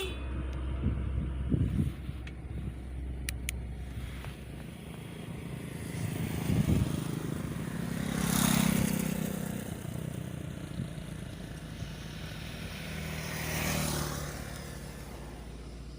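Road traffic: vehicles passing by, the loudest about eight and a half seconds in and another near fourteen seconds.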